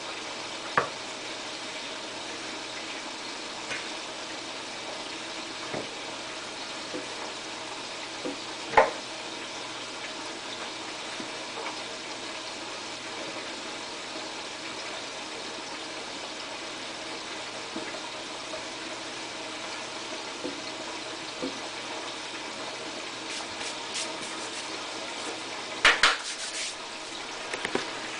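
Chicken pieces frying in hot oil, a steady bubbling hiss. A few sharp clinks of a fork against a plate cut in, the loudest about nine seconds in and a cluster near the end.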